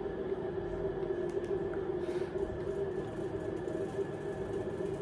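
Steady mechanical hum with a constant low tone, holding the same level throughout.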